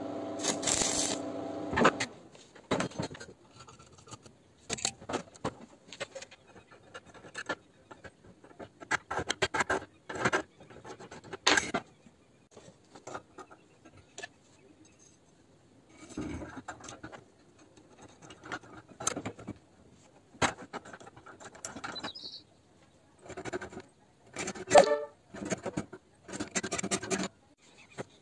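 Stick-welding arc buzzing and crackling for about the first two seconds, then stopping. After that come scattered clicks, taps and scrapes of a steel tube and metal tools being handled at a bench vise.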